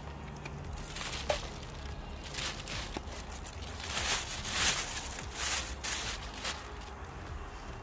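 A plastic bag and paper food packaging crinkling and rustling as they are handled, in irregular bursts for several seconds, loudest a little past the middle.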